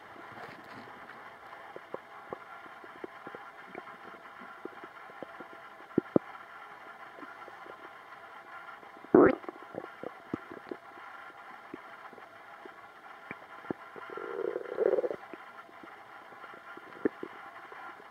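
Human stomach gurgling: scattered small pops and clicks, a loud sharp gurgle about nine seconds in, and a longer bubbling gurgle around fourteen to fifteen seconds, over a steady background hiss.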